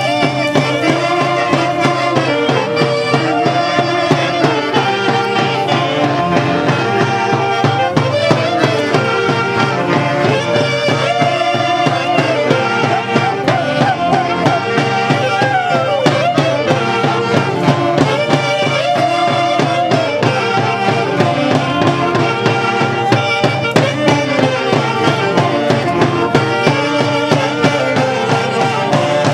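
A Huancayo-style orquesta típica playing lively Andean folk music for the Santiago festival: saxophones, clarinets and violins carrying the melody over a steady beat.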